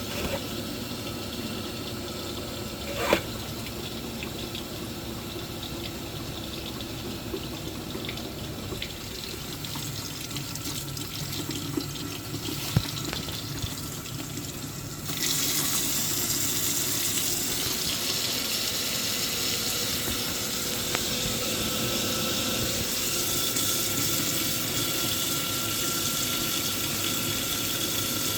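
Water rushing and hissing in a combi boiler's heating circuit, with a couple of sharp knocks in the first half. About halfway through it suddenly gets louder and steadier, with a faint steady whine, while the seized circulating pump is being freed.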